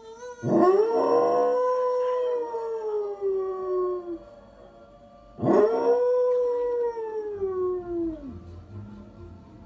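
A dog howling: two long howls, each swooping up sharply and then sliding slowly down in pitch, the second starting about five seconds after the first.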